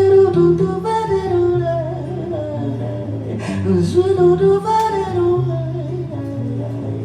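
Live acoustic song: a woman singing or humming a wordless vocal line over a strummed acoustic guitar.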